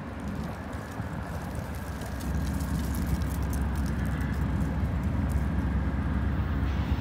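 Amtrak GE Genesis diesel locomotive approaching at slow speed: a steady low engine rumble that grows louder a little over two seconds in, with light clicking over it.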